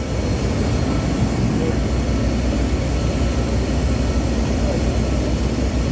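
Steady low rumble of machinery running, with a constant deep hum underneath.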